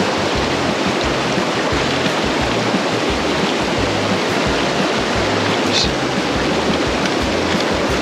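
Mountain stream rushing over rocks in a steady, loud wash, with background music's bass line running underneath.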